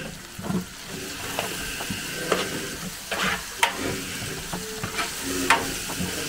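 A big pot of chicken curry sizzling while it is stirred, with about six sharp scrapes and knocks of the stirring utensil against the pot.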